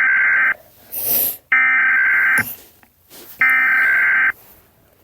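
Emergency Alert System SAME header: three identical bursts of warbling digital data tones, each about a second long and a second apart, the coded preamble that opens an emergency alert broadcast. A brief hiss follows the first burst.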